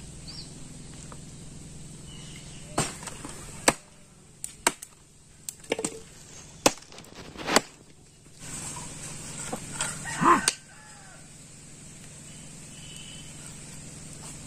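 Heavy knife chopping through a goat head on a wooden block: a run of about eight sharp chops between about 3 and 8 seconds in. A chicken calls near the two-thirds mark.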